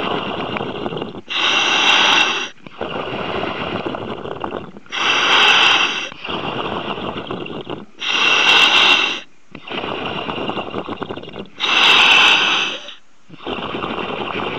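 A diver breathing through underwater breathing apparatus, heard over the diver-to-surface comms line: slow, even breath cycles, with a louder hissing rush about every three and a half seconds, four times.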